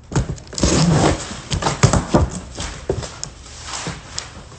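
Large cardboard shipping box being handled and worked open: a drawn-out cardboard rasp about half a second in, then a run of irregular knocks and rustles that tail off.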